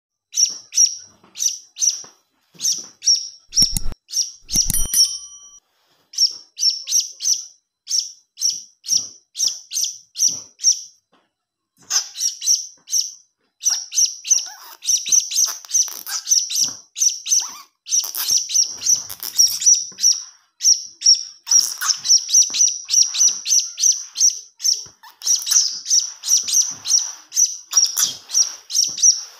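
Young blue-crowned hanging parrot (serindit) giving a long run of short, high-pitched chirps, a couple a second at first and coming faster and denser after a brief pause near halfway; used as a lure call. A couple of low knocks about four seconds in.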